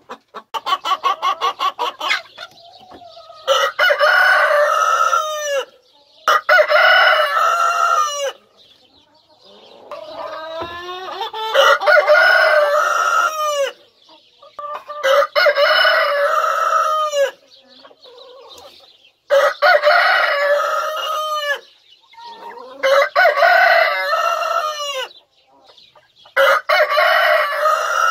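Rooster crowing again and again, long loud calls of two to three seconds each, after a quick run of clucks about a second in.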